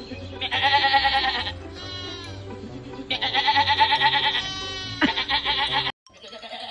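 Long, wavering bleats, two loud ones and a third starting near the end, with shorter gliding cries between them, over background music with a bass line. The sound drops out briefly just before the last bleat.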